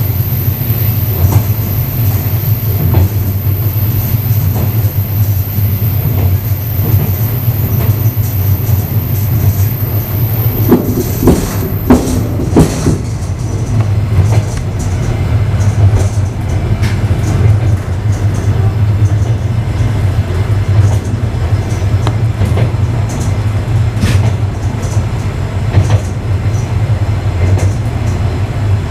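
Passenger train carriage running at speed, heard from inside the rear vestibule of the last car: a steady low rumble with the wheels knocking on the rails, and a short run of louder knocks about eleven to thirteen seconds in.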